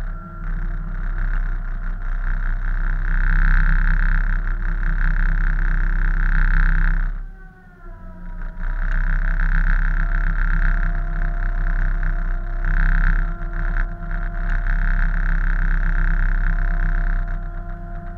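Salvage tug's engines droning steadily under load in a heavy sea. About seven seconds in the sound drops away briefly and the pitch slides before it comes back up to full drone.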